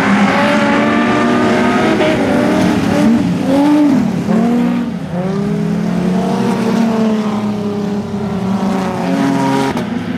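Several dirt-track street stock race cars' engines racing around the oval, their pitch rising and falling as they accelerate and lift through the turns, with more than one engine heard at once.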